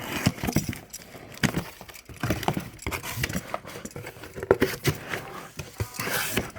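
Speaker box and packaging being opened and handled by hand: irregular knocks, taps and rustling of cardboard and packing material.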